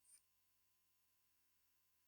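Near silence: a pause in the narration with only faint background hiss.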